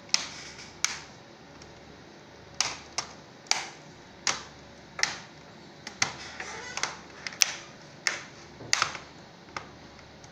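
Plastic snap clips of an ASUS X554L laptop's top case clicking into place as the palmrest and keyboard deck are pressed down by hand: about a dozen sharp clicks at uneven intervals, the case being clipped shut during reassembly.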